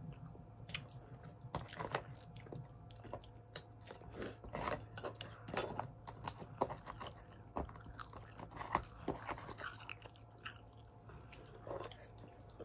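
Close-up chewing of sour candy, with irregular crunches scattered throughout.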